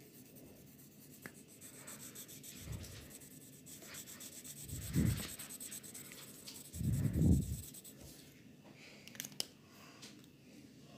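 Yellow colouring pen scratching back and forth on paper, colouring in a drawing, with a few dull bumps, the loudest about two-thirds through; the strokes stop near the end.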